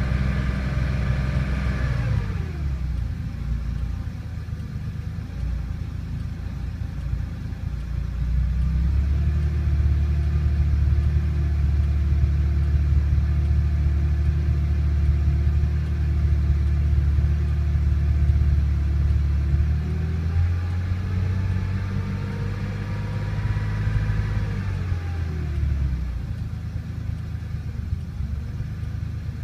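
1974 Porsche 911's air-cooled flat-six engine, heard from inside the cabin. It falls from raised revs to idle about two seconds in, is brought up and held steady at raised revs from about nine seconds, climbs higher around twenty seconds, then drops back to idle a few seconds later.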